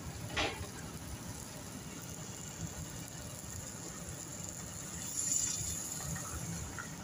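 Water poured from a plastic jug into a stainless-steel pan of chunky tomato sauce, a steady splashing pour that gets louder about five seconds in. There is a short knock just after the start.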